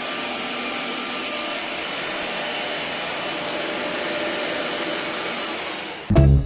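Philips SpeedPro Max cordless stick vacuum running steadily, a smooth motor whoosh with a thin high whine, which stops near the end.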